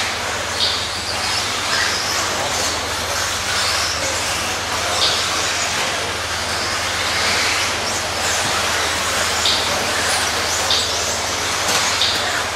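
Several radio-controlled 2WD buggies racing on a dirt track: a steady wash of motor and tyre noise, with short high-pitched whines every second or so as cars pass close by.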